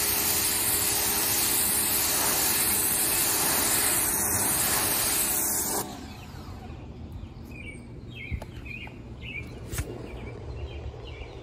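Pressure washer spraying concrete, a loud steady hiss of water over the running pump, which stops suddenly about six seconds in. After that, birds chirp faintly and a couple of light clicks are heard.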